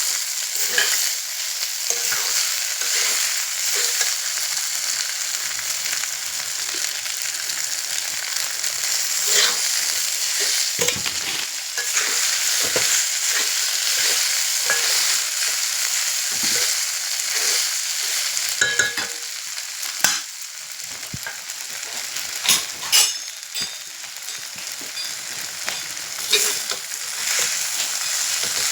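Chira fry sizzling in a frying pan while being stirred: a steady hiss with frequent short scrapes and taps of the spatula against the pan, and a few louder clinks past the middle.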